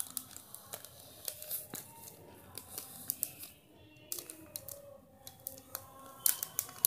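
A marker pen drawing a curved line on sheets of paper: a run of short scratchy strokes and small clicks, with the paper rustling under the hand.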